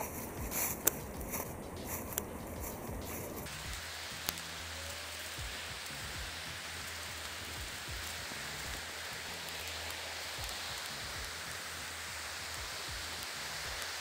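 A few clicks and rustles, then about three and a half seconds in an abrupt change to the steady, even rushing of the Niagara River's Devil's Hole Rapids.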